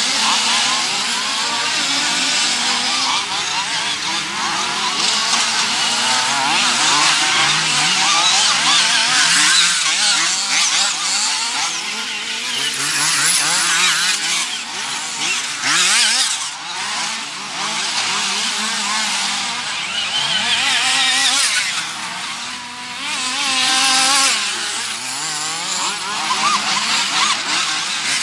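Small two-stroke nitro engines of 1:8-scale off-road RC buggies, several at once, screaming and revving up and down as they race, with constant rises and falls in pitch.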